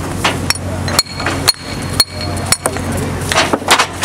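Concrete paving blocks knocking and clinking against each other and the steel feed ramp of a Tiger-Stone paving machine as workers stack them by hand, a sharp knock about every half second with a brief metallic ring after one. A steady low hum runs underneath.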